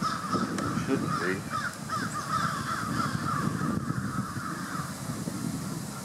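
A flock of birds calling together in a continuous, overlapping chatter of short, harsh calls, over low wind noise on the microphone.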